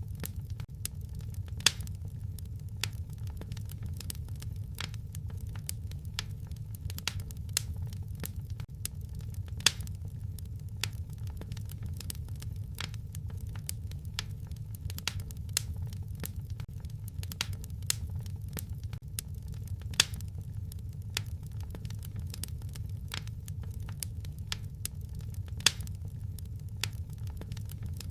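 Wood fire crackling in a fireplace: many irregular small snaps and pops, with about four louder pops spread through, over a steady low rumble.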